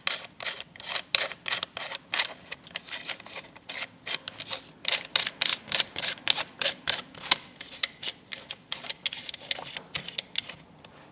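Quick, uneven metal clicks, several a second, as the parts of a hand rivet nut tool are handled and screwed back together.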